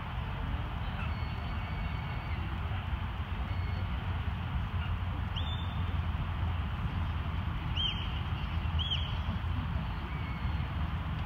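Herding whistle commands blown to a border collie working sheep: short notes that rise and fall, one about five and a half seconds in, then two about a second apart near the end, over a steady low rumble.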